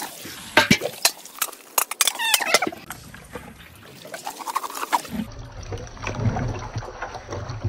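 Long wooden paddle stirring marinated chicken pieces in a large aluminium pot: the paddle knocks on the pot several times in the first couple of seconds, then wet stirring and squelching of the meat and masala.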